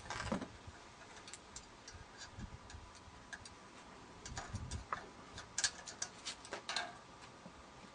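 Irregular light clicks and taps of a UHF grid aerial's metal parts being handled and fitted together by hand, with a busier run of clicks in the second half.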